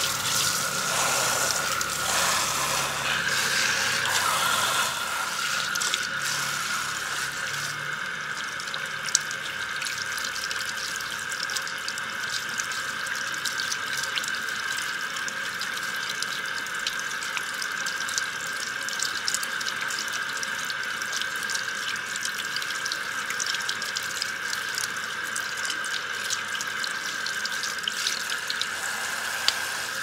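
Handheld shower sprayer at a salon shampoo basin running steadily, water spraying through hair and splashing into the basin. It makes a constant hiss with small patters and drips.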